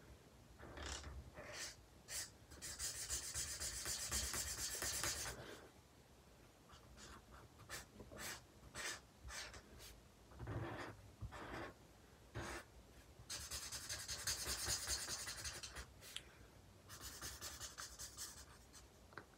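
Black Promarker alcohol marker nib rubbing and scratching over paper while filling in a black area: a few short strokes, then longer stretches of quick back-and-forth colouring, faint.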